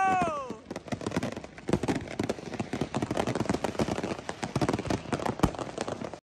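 Many consumer fireworks bursting at once: a dense, continuous crackle of pops and bangs, with a louder bang about five and a half seconds in. At the very start a held, horn-like tone slides down in pitch and stops.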